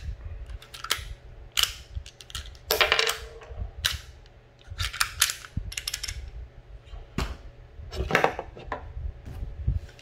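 A Smith & Wesson Shield 9mm pistol, its steel magazine and loose cartridges being handled on a wooden tabletop: an irregular series of sharp metallic clicks and clacks.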